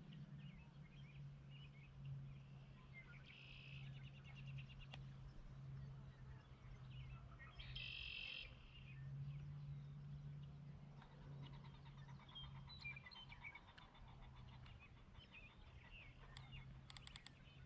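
Faint rural evening ambience: scattered bird chirps and calls, including one short buzzy call, over a low steady hum.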